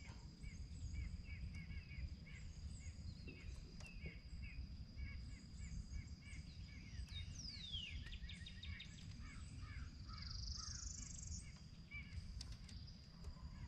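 Faint outdoor ambience: wind rumbling on the microphone while birds call over and over. One falling whistle comes about seven seconds in, and a thin steady high tone sits underneath.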